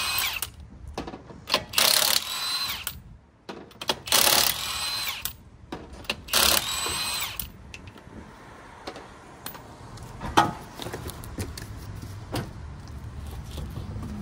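A power tool fitted with a 21 mm socket runs in four short bursts to spin the wheel's lug nuts off, its motor whine dropping as each burst stops. After that come lighter clinks and handling clatter, with one sharp knock about ten seconds in.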